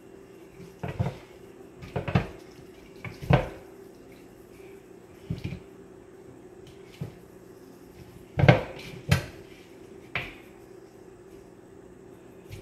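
Kitchen handling sounds from sprinkling onion powder over raw turkey wings in a pan: about ten irregular knocks and clatters from the shaker and dish, the loudest about two thirds of the way in, over a steady low hum.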